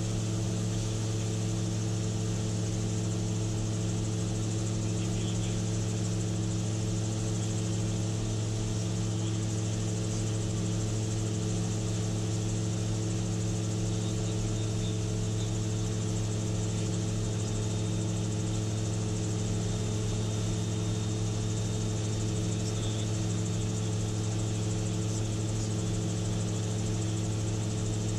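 Gyrocopter engine droning steadily in level flight: one deep, unchanging hum with a constant hiss of rushing air over it.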